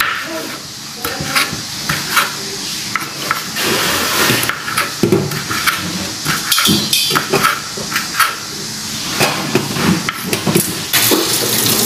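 Kitchen knife chopping raw shrimp into small pieces on a wooden cutting board: a run of irregular knocks of the blade striking the board.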